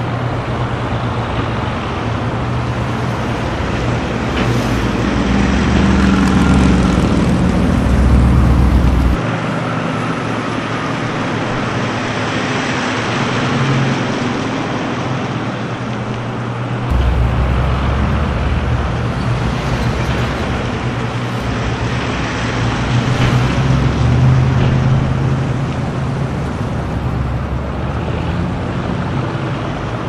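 Street traffic: a steady mix of car engines and tyre noise, swelling louder as vehicles pass close about six to nine seconds in and again near the end. The low rumble drops out abruptly about nine seconds in and comes back about eight seconds later.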